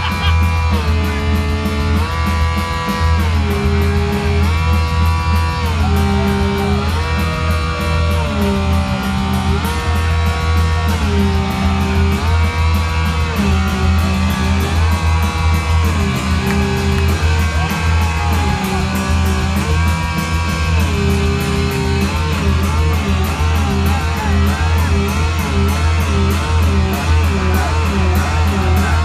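Heavy metal band playing live with a loud electric guitar lead. The guitar repeats a phrase that steps up and back down about every two seconds over a steady low bass drone, and about two thirds of the way through it switches to a fast wobbling trill.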